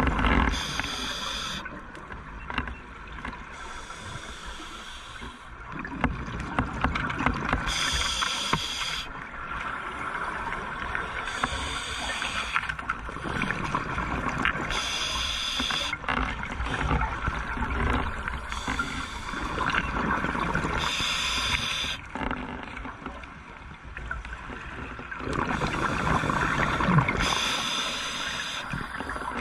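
Scuba diver breathing through a regulator underwater: a hissing inhale roughly every three to four seconds, each followed by a gurgling burst of exhaled bubbles.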